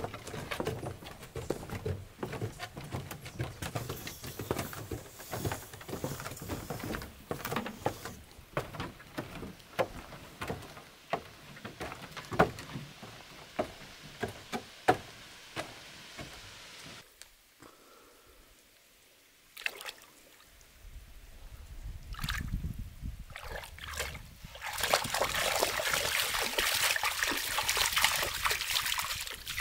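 Scattered sharp knocks and clicks, a brief lull, then near the end a dog wading through shallow lake water, splashing steadily.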